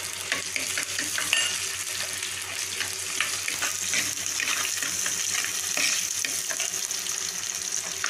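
Chopped shallots, green chillies, garlic and curry leaves sizzling in hot oil in a clay pot as a tempering, stirred with a steel spoon that clicks and scrapes against the pot now and then.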